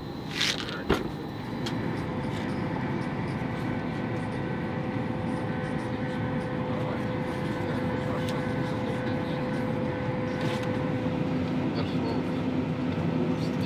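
Steady hum of an airliner cabin, a noise bed with several steady tones from the aircraft's engines and ventilation. A couple of sharp knocks come in the first second.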